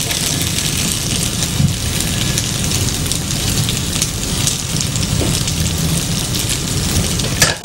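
Spicy qeema macaroni sizzling steadily in a pan on a lit gas burner, with a metal spatula scraping and scooping through it and clicking against the pan now and then.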